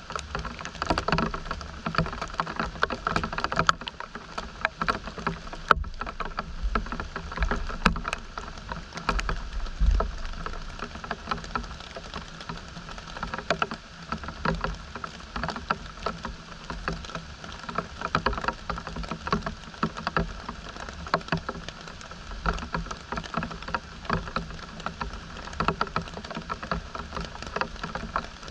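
Rain pattering and dripping in a dense, irregular spatter of small drops, with occasional low thumps.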